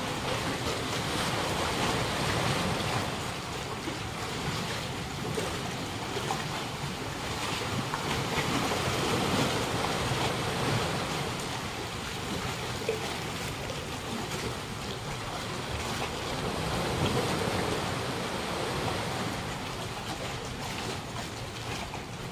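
Small harbour waves lapping and washing against a concrete slipway edge: a steady rush of water noise that swells and eases a few times.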